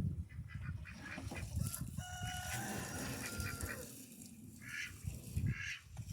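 Farmyard waterfowl calling: one long steady call about two seconds in, then a few short calls near the end, over low rumbling thumps.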